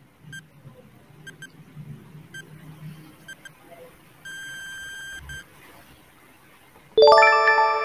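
Timer sound effect: short high electronic beeps, singly and in pairs, then one longer beep about four seconds in. About seven seconds in, a loud bright chime rings out and hangs on.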